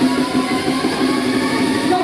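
Loud music playing from a waltzer ride's sound system.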